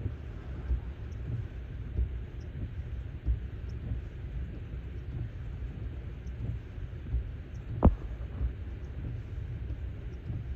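Low, steady vehicle rumble with scattered soft thumps and one sharper knock about eight seconds in.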